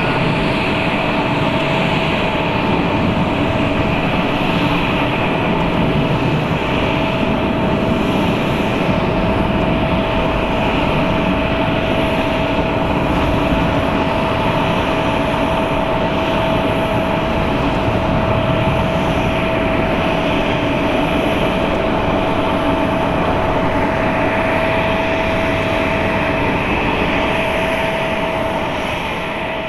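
Boeing 777-200ER's two Rolls-Royce Trent 895 turbofans at climb thrust just after takeoff: a steady jet roar with a constant mid-pitched tone running through it, fading near the end.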